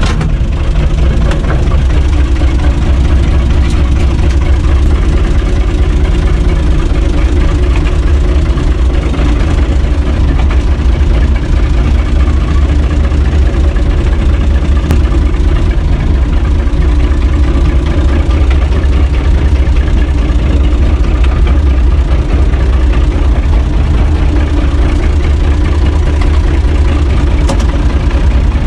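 UTB 445 tractor's diesel engine running steadily, heard from inside the tractor's cab.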